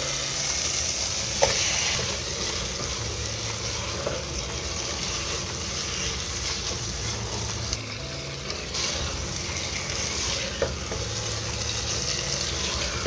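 Chicken pieces sizzling in oil and masala paste in a nonstick pot as they are browned, stirred with a spatula that scrapes the pot and knocks against it a couple of times.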